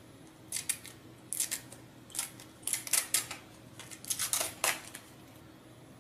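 Protective film being peeled off a plastic base plate: crackling rustles in about five short bursts, the loudest near the end.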